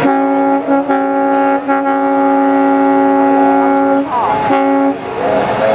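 Steam locomotive's chime whistle sounding a chord: one long blast of about four seconds, a brief break with sliding pitches, then a short second blast.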